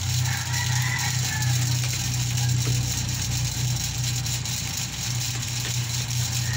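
A steady low mechanical drone, with faint, brief higher wavering tones in the first second or so.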